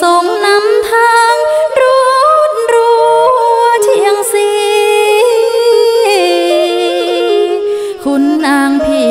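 A woman sings a slow, ornamented Khmer Surin folk melody with wavering vibrato, accompanied by a two-string bowed fiddle (tro).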